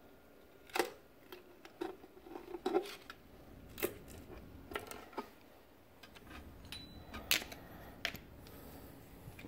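A screwdriver prying and tapping at a side cover plate on a Dodge 230 flathead six engine block, making about eight sharp metallic clicks and scrapes, spaced irregularly.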